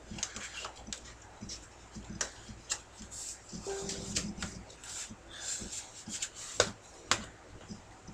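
Scraping, rustling and clicking of a DVD case being worked out of a tight box-set sleeve, with two sharper knocks near the end; the case is stuck and hard to get out.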